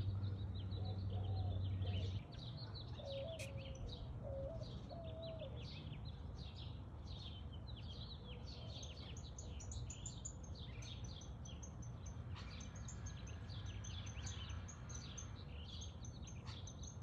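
Many small birds chirping and twittering in a dense, continuous chorus, with a few lower wavering calls in the first few seconds. A low steady hum stops about two seconds in.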